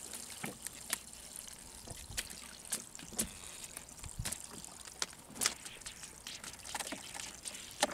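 Water trickling and lapping around a small wooden fishing boat, with scattered light splashes and knocks.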